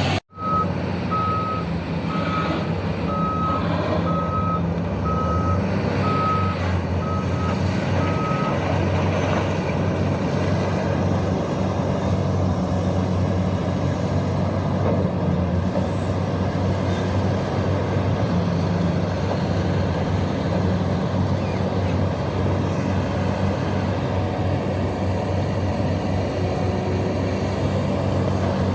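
Heavy diesel machinery running steadily, with a backup alarm giving a series of evenly spaced high beeps that stop about eight seconds in.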